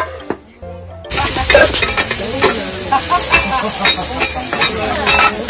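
Shredded cabbage sizzling on a hot flat iron griddle while two metal spatulas scrape, clack and toss it against the plate. The sizzle starts abruptly about a second in.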